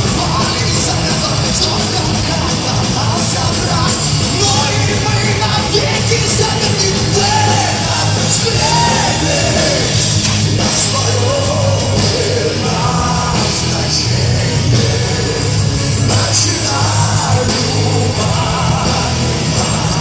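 Heavy metal band playing live at full volume, with drums, a heavy bass line and cymbals; a singer's voice comes in over the band for much of the time.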